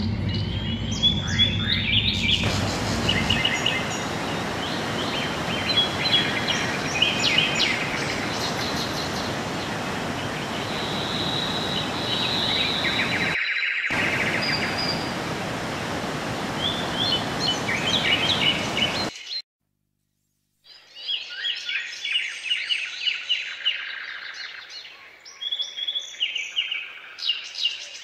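Small birds chirping and singing over a steady rush of water. The rushing stops abruptly about two-thirds of the way through, and after a second of silence the birdsong carries on alone.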